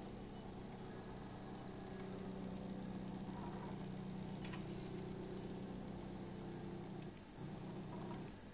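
Small stepper motor driven by a PIC microcontroller, turning a wooden turntable with a steady low hum of several fixed tones. About seven seconds in, the hum falters briefly, then carries on.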